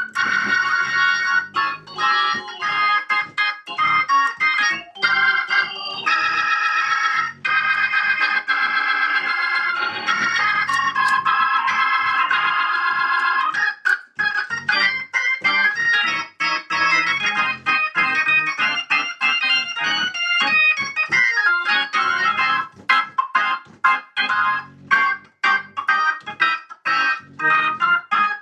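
Organ played through a Leslie 122 rotating-speaker cabinet running on its newly rebuilt amplifier. The first half is sustained chords; about halfway it changes to quicker, choppy runs of short notes.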